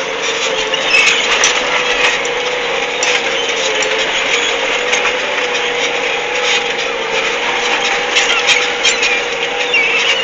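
Case IH Puma CVX 160 tractor engine running steadily under ploughing load, a steady drone whose pitch wavers slightly, with scattered clicks and rattles over it.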